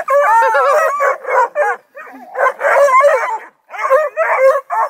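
A pack of hounds (bluetick, redbone and black-and-tan coonhounds and beagle mixes) baying and yelping together, many voices overlapping in rising and falling calls. The chorus is loud and breaks off briefly twice.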